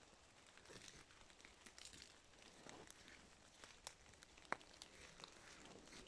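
Faint rustling and crackling of wet fallen leaves and twigs as dachshunds nose and walk through the leaf litter, with one sharper click about four and a half seconds in.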